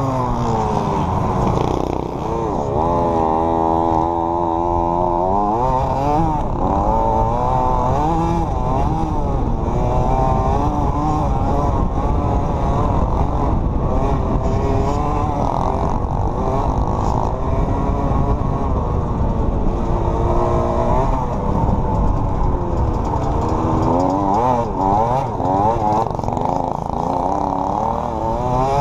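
Small youth motocross dirt bike engine revving up and down over and over as the rider works the throttle and gears, with wind buffeting the camera microphone.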